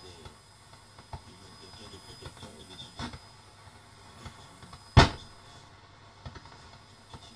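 Experimental sound-art soundtrack: a faint noisy texture with scattered small clicks and a thin high steady tone, broken by one loud sharp hit about five seconds in that dies away within about half a second.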